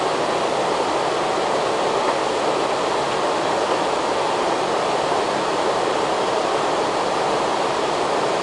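Steady rushing noise on the flight deck of an Airbus A330-300 in flight, the even hiss of air streaming past the cockpit and its ventilation.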